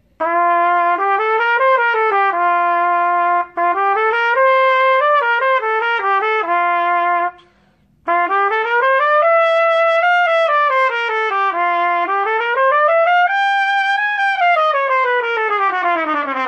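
Trumpet playing a warm-up scale study: short stepwise runs up and back down, each pass adding another note and climbing a little higher. It comes in three phrases with short breaks for breath, the last one longest and highest.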